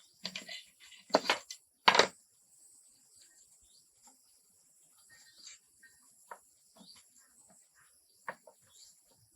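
A few loud, sharp knocks in the first two seconds, then scattered lighter clicks and taps, over a steady, high insect drone.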